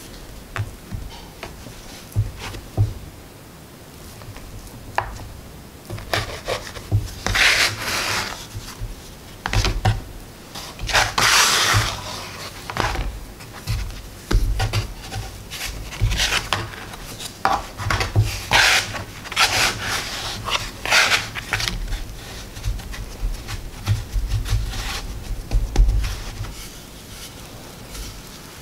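Bench scraper scraping and cutting scone dough on a wooden board, in irregular rough strokes, with soft knocks and thumps as the dough pieces are lifted and stacked.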